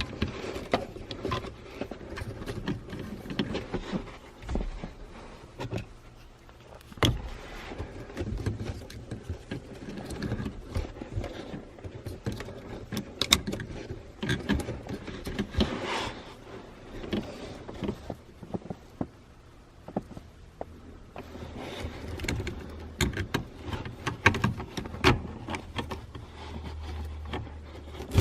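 Hands fitting a car's neutral safety switch and its wiring connector onto the gear selector: scattered clicks, taps and rustling of plastic and metal parts, with a faint low hum near the end.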